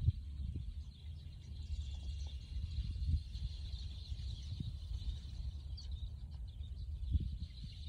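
A flock of small shorebirds giving a constant, thin, high chatter of calls, over a steady low rumble.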